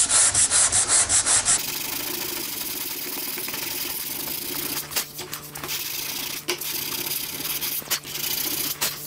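A hand sanding block with sandpaper rubbing back and forth over cured Bondo polyester body filler on a wood repair, sanding it flush. The strokes come quickly at first, about four or five a second, then give way to a more even rasp.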